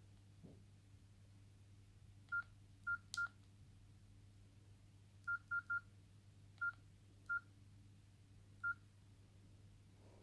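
Nokia E50 keypad tones: short, identical high beeps, one for each key press while scrolling through the phone's menu, nine in all, coming singly and in quick runs of two or three.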